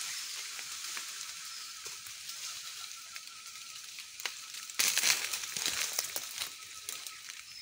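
Leaves and twigs rustling and crackling in dense forest undergrowth, loudest in a burst of dense crackling about five seconds in that lasts a second or two, over a steady high hiss.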